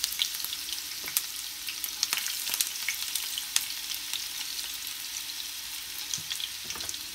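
Chopped onion frying in hot oil in a frying pan: a steady sizzle with scattered crackles and pops, as the onion is fried to make it crisp.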